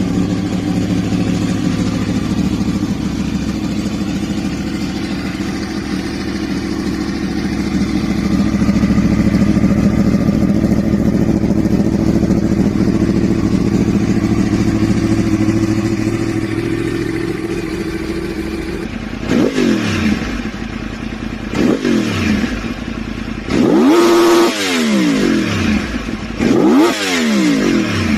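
Yamaha R1 inline-four engine with a big-bang firing order idling steadily, then revved in about five sharp throttle blips, each rising and falling quickly, over the last third.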